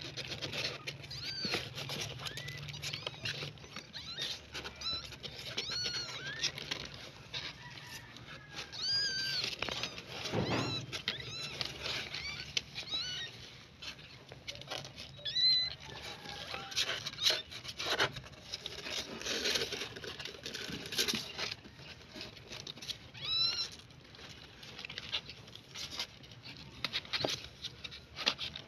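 Nursing kittens giving many short, high-pitched squeaky mews, each rising and falling, over rustling and scratching on the cardboard box as they crawl against their mother.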